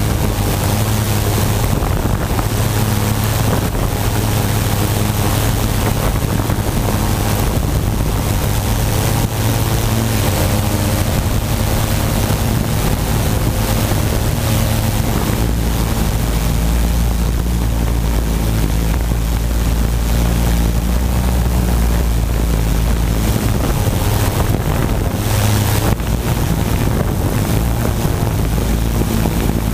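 Tarot quadcopter's four electric motors and propellers whirring steadily, heard up close from the onboard camera, with several held tones that shift slightly in pitch as the craft holds position. Wind rumbles on the microphone and grows heavier for a stretch in the middle.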